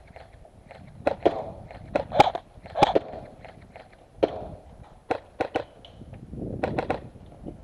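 Airsoft rifle fired in single shots, a dozen or so sharp cracks at an uneven pace, some in quick pairs and a short burst of three near the end.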